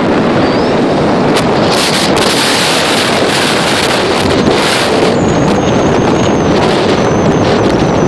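Car driving at highway speed: a loud steady rush of road noise and wind buffeting the microphone, with a thin high whistle wavering in the second half.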